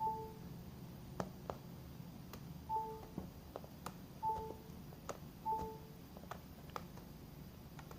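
An iPhone's short electronic charging chime sounding four times at irregular intervals as the magnetic charging plug connects, with light plastic clicks of the connector and phone being handled between them.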